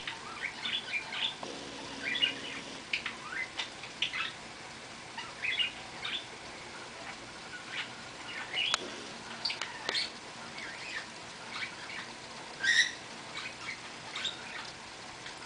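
Birds chirping and calling in short scattered bursts over a steady hiss of rain, with one louder, harsher call about three-quarters of the way through.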